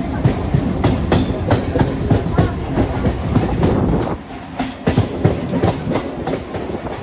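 Train running on the track, its wheels clattering over rail joints in a steady rhythm of clicks a little over twice a second, over a loud rumble that eases about four seconds in.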